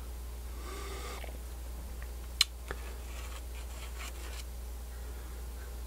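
A multimeter probe tip tapping and scratching on a paper schematic: one sharp tap about two and a half seconds in, a softer one just after, then light scratching, over a steady low hum.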